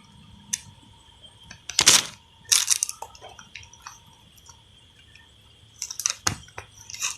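Handling noises: scattered clicks and short crinkly rustles, the loudest about two seconds in, as a laptop charger and its plastic packaging are handled.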